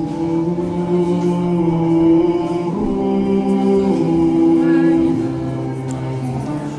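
Slow singing by several voices in long held notes, the chord shifting to new notes about three and four seconds in.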